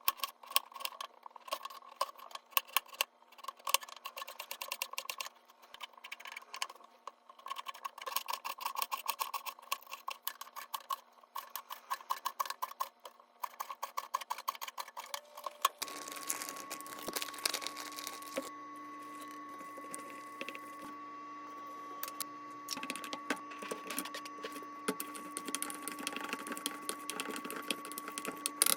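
Rapid clicking and tapping of kitchen utensils while food is prepared for chijimi. About halfway through, a steady electric hum starts with crackling over it, typical of the pancake batter sizzling in a frying pan.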